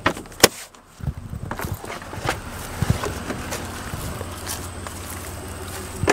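Car door latch clicking open as the interior handle is pulled, a sharp click about half a second in, followed by rustling, scattered knocks and a steady low hum, with another loud knock at the very end.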